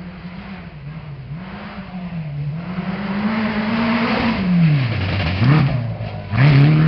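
Off-road rally car's engine getting louder as it comes closer, its revs rising and falling over and over. In the second half the revs drop and then shoot back up several times, the last rise near the end being the loudest.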